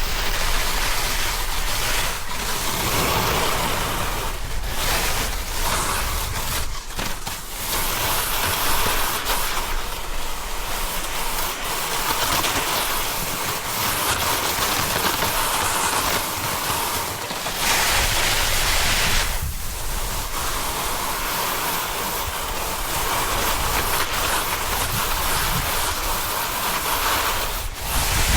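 Snowboard sliding and scraping over snow during a fast descent, with wind rushing over the action camera's microphone. The hiss swells and fades as the board carves, dropping out briefly a few times.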